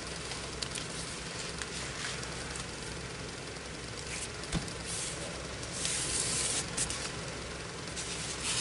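Ribbon rustling and rubbing under the hands as it is pulled tight and pressed down onto double-sided crafter's tape, a soft scratchy hiss that swells a little after the middle.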